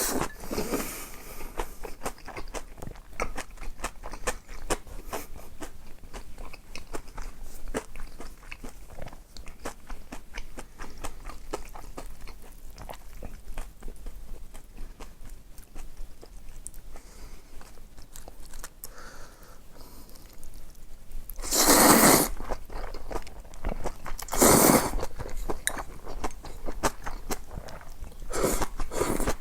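Close-miked eating with continual crunching and chewing of crispy deep-fried pork cutlet. Two louder, broader bursts come in the last third.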